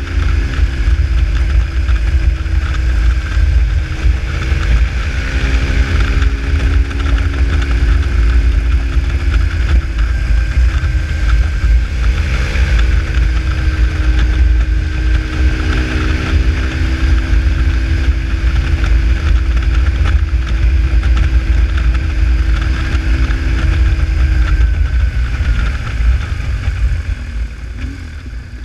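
BMW R1150GS boxer-twin engine running on the move, with heavy wind rumble on the microphone. The engine note shifts up and down several times, then falls away near the end as the bike slows.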